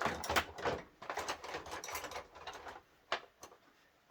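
Hand tools and small metal bits clattering and clicking in quick succession as they are rummaged through, then two separate clicks near the end.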